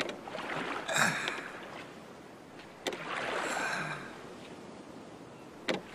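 Oars pulling a rowing boat through water: about three strokes, roughly three seconds apart, each a short knock followed by a swish of water.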